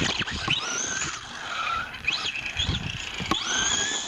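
RC buggy's Arrma BLX185 2050 kV brushless motor whining on 4S LiPo power, rising and falling in pitch several times as the buggy accelerates and lets off, with low thumps underneath.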